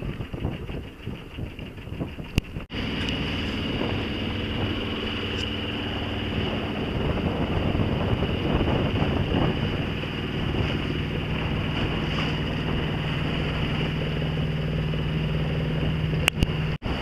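Wind buffeting the microphone aboard a sailboat under way, with a steady rush of noise and a faint low hum. The sound drops out abruptly twice, about three seconds in and near the end.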